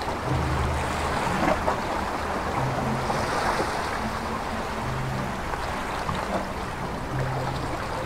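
Sea waves washing and breaking on the shore, a steady rush of surf. Soft background music runs beneath it, its low notes recurring every couple of seconds.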